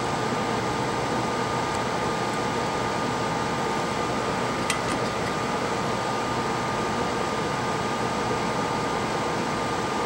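Steady whoosh of a small electric fan with a faint steady whine, and a single small click about five seconds in.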